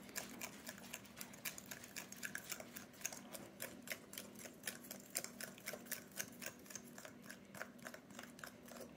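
Metal fork clicking and tapping against the side of a glass mixing bowl while beating eggs into flour, a quick irregular run of light ticks, several a second.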